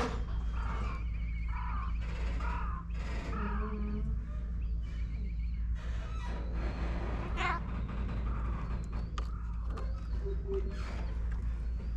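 Animal calls: a few short, wavering cries about a second apart in the first few seconds, then scattered fainter calls, over a steady low rumble.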